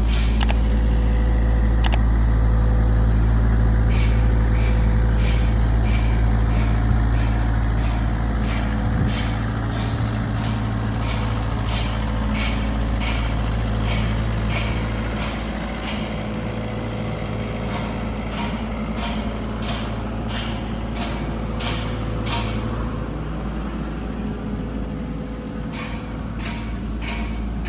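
Kubota RX-505 mini excavator's diesel engine running steadily, with a sharp regular clicking about twice a second over it. The engine note drops slightly about halfway through.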